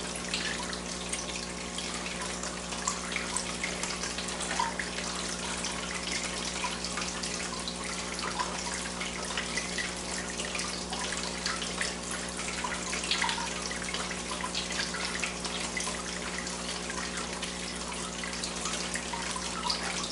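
Steady trickling and splashing of running water, typical of an aquaponics fish tank's circulating flow, with a low steady hum beneath it.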